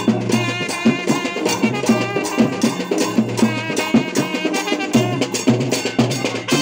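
Sri Lankan papare band playing a fast dance tune: brass horns carry the melody over held low bass notes and a quick, driving drum beat.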